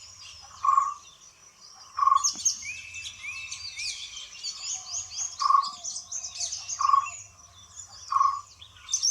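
Forest bird chorus: many birds chirping and warbling over one another, and a loud, short, lower call note repeated roughly every one and a half seconds.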